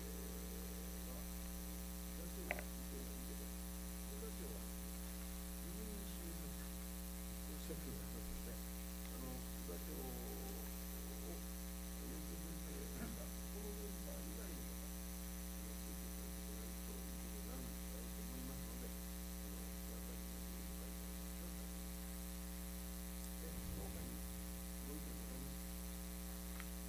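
Steady electrical mains hum with a buzz from a faulty recording setup, with faint, indistinct voices under it at times and a single sharp click about two and a half seconds in.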